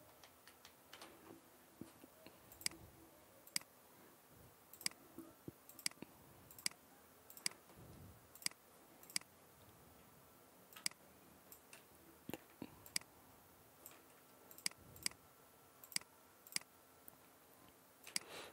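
Computer mouse buttons clicking: faint, sharp single clicks at irregular intervals, with a short pause a little past the middle.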